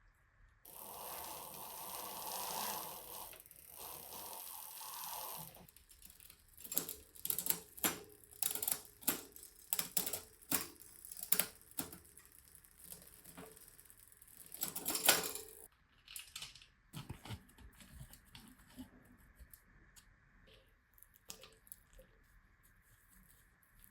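Workshop handling sounds from work on a bicycle: a hiss lasting about five seconds, then a string of irregular clicks and taps, with a louder rustling burst about fifteen seconds in, trailing off into softer taps.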